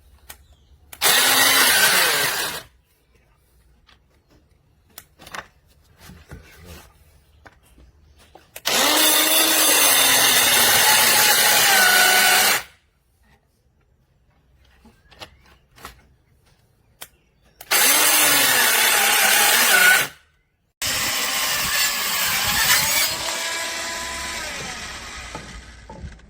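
Corded circular saw run four times in short bursts, its motor whine rising in pitch as it spins up at each start. The first three runs stop abruptly. The last and longest one fades out gradually.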